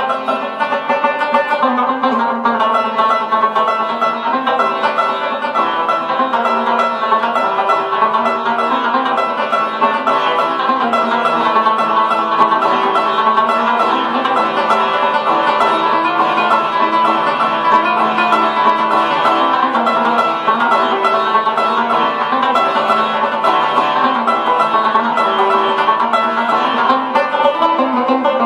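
Afghan rubab played solo: a fast, unbroken run of plucked notes over the steady ring of its drone and sympathetic strings, an instrumental naghma.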